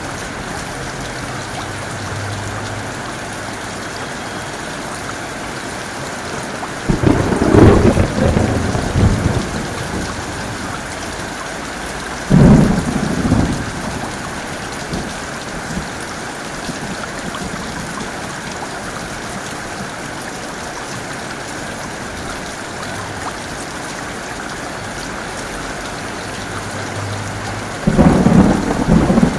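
Heavy rain falling steadily, with three sudden thunderclaps: one about seven seconds in that rumbles on for a few seconds, a shorter one about twelve seconds in, and another near the end.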